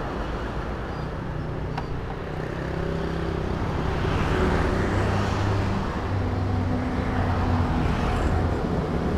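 Road traffic: the engines of passing motor vehicles hum and swell, getting louder about four seconds in.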